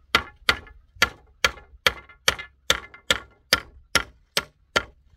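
A steady series of about a dozen sharp knocks, evenly spaced at a little over two a second, each dying away quickly.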